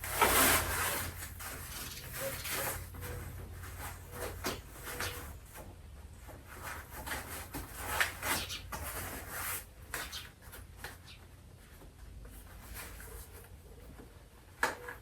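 Handling noises from assembling an animatronic Halloween prop: irregular rubbing, rustling and small knocks as parts and wires are worked into place, with louder ones right at the start and about eight seconds in.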